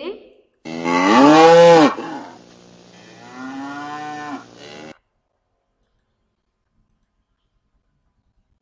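Recorded cow mooing, played back as a sound clip: one loud moo of over a second, then a second, softer moo.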